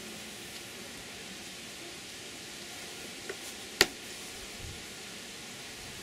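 Steady hiss of an open beehive, with a small click and then one sharp wooden knock a little past halfway as a comb frame is handled in the wooden hive box.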